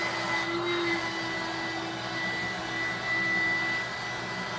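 DC electric air pump running steadily, blowing air into an air mattress, with a constant high whine over the rush of air.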